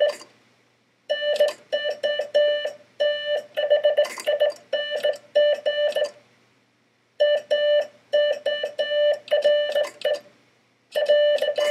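Morse code sent by hand on a Vibroplex semi-automatic bug key, heard as a buzzy keyed tone in quick strings of dots and longer dashes. Three runs of code, with a pause of about a second between each.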